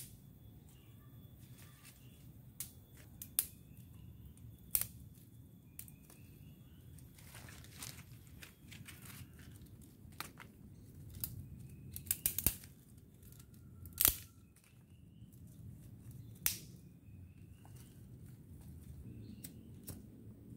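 Dry twigs and sticks snapping and cracking as firewood is gathered and broken: irregular sharp cracks, a quick run of them a little past the middle and a loud single crack soon after.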